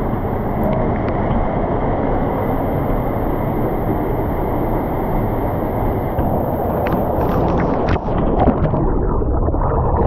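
Waterfall pouring close over and around the camera: a loud, steady rush of water, with a few sharper splashes about seven to eight seconds in.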